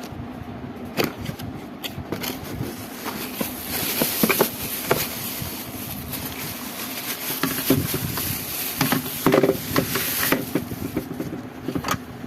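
Handling noises from a toy alarm clock being unboxed: scattered clicks and knocks, with a stretch of crinkly rustling through the middle, over a steady low hum.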